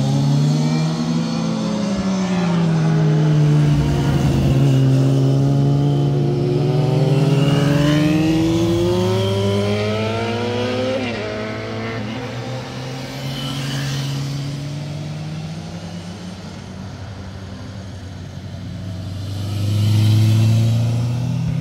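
Several sport motorcycles passing one after another through a hairpin bend. Each engine's pitch drops as it slows into the curve, then rises as it accelerates out.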